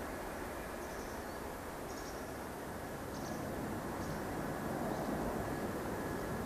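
Boeing 767-300's twin turbofan engines heard as a steady, distant rumble and hiss as the airliner climbs away after takeoff. A few faint short high chirps come about once a second over it.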